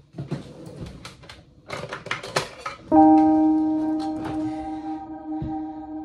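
A run of sharp clicks and knocks, then music: about three seconds in a held chord starts loud and slowly fades.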